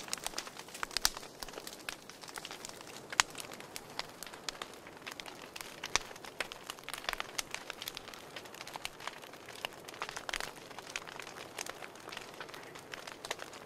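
Wood fire crackling: irregular sharp pops and snaps over a faint hiss.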